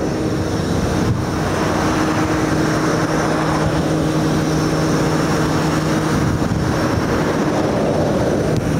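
A vehicle engine running steadily with an even hum, over a continuous wash of motorway traffic noise.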